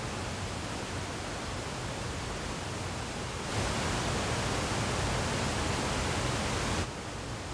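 Forest stream rushing over rocks: a steady hiss of running water that turns louder and closer about three and a half seconds in, then drops back abruptly near the end.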